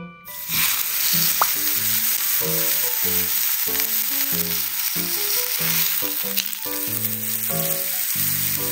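A block of raw beef sizzling loudly in hot oil in a frying pan as it is seared for roast beef. The sizzle starts suddenly as the meat goes into the pan and holds steady.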